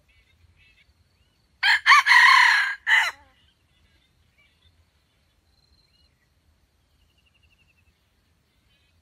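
Junglefowl rooster crowing once, about a second and a half in, a single crow of about a second and a half in three parts with short breaks between them. Faint small-bird chirps sound before and after.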